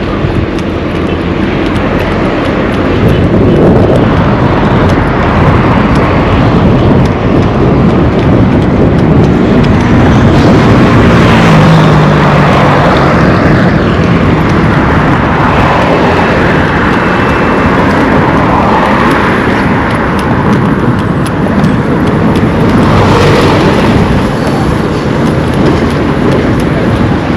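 Road traffic on a busy highway: vehicles passing close by, their engine and tyre noise swelling and fading one after another, loudest about 11 seconds in and again near the end.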